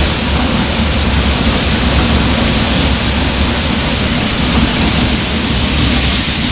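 Steady machine noise of a puffed corn snack processing line: a continuous rushing hiss with a low hum underneath, even throughout.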